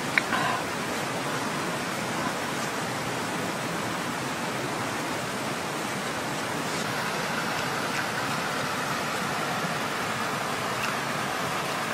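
Steady rushing of a stream's flowing water. A short sharp click comes just after the start.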